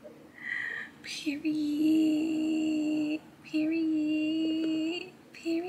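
A woman singing long held notes with no clear words: two steady notes of a second and a half to two seconds each, and a third starting near the end.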